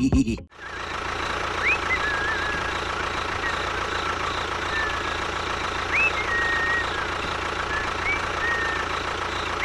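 A small motor running steadily, with three or four short high chirps that rise and then trail off, a few seconds apart.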